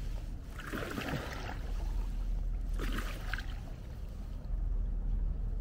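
Kayak paddle strokes in the water, two splashing dips about two seconds apart, with dripping between them, over a steady low rumble.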